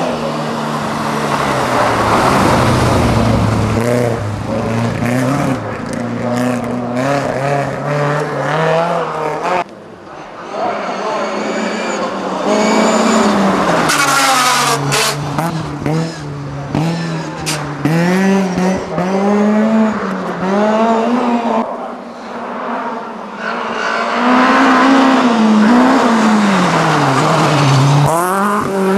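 Small rally cars driven hard one after another on a snow-covered forest stage. Their engines rev high and drop back again and again with each gear change and throttle lift as they pass. The sound breaks off abruptly about ten seconds in and picks up on the next car.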